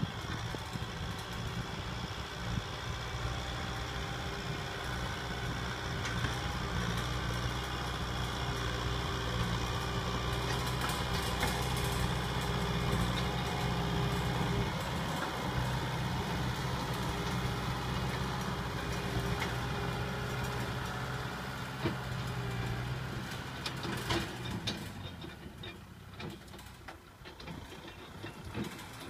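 Kubota M6040 SU tractor's diesel engine running steadily under load as it pulls a disc plough through dry ground. About 24 seconds in the engine sound falls away, and a few sharp knocks are heard.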